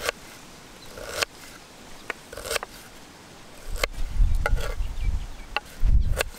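Kitchen knife chopping red onion on a wooden cutting board: sharp knife strikes against the board roughly once a second, unevenly spaced, with a low rumble partway through.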